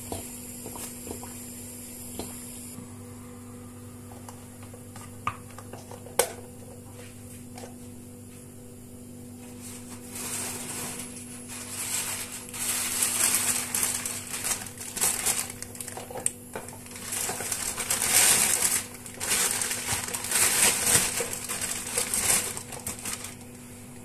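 Kitchen handling sounds over a steady low hum: a few sharp clicks and knocks of things being set down, then from about ten seconds in, repeated bursts of plastic bag rustling and crinkling.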